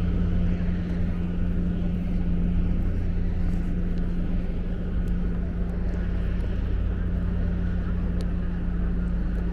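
Steady low engine hum with a constant drone, from a vehicle or machine running close by, over outdoor street noise.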